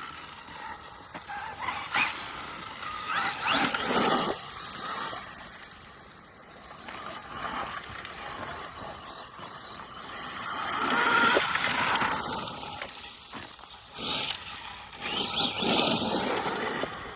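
Arma Mojave EXB brushless electric RC truck being driven hard: several bursts of rising motor whine as the throttle is opened, with tyre and ground noise, easing off between runs.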